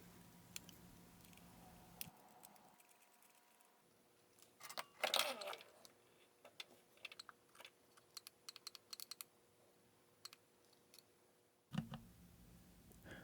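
Faint, scattered small clicks and taps, with a run of quick clicks in the middle and one slightly louder brief sound about five seconds in.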